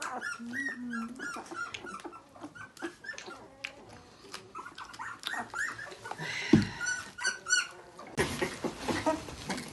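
Young bottle-fed puppy squeaking and whimpering over and over in short rising cries. A sharp knock comes about two-thirds of the way through, and a loud rustling starts near the end.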